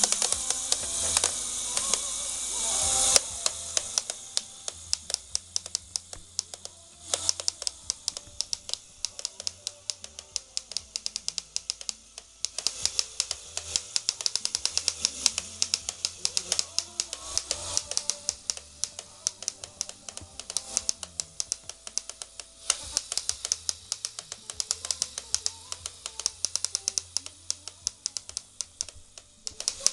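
LEGO Technic 8-wheel crawler's drivetrain clicking rapidly under load, in stretches of several seconds with short breaks: gears skipping as the electric motors strain against the climb, clicking more the stronger the batteries. The motors whir loudly for the first three seconds.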